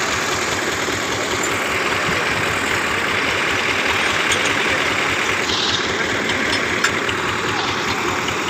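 Tractor diesel engine running steadily at idle close by, with no revving.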